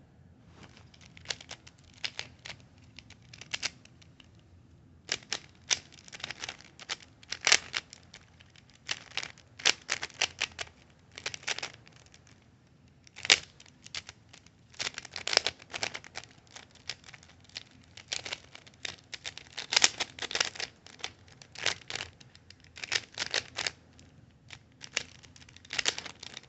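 Plastic Rubik's cube being turned fast in a speedsolve: rapid runs of clicking, clacking layer turns in bursts with short pauses between them. The cube is tight and locks up a lot.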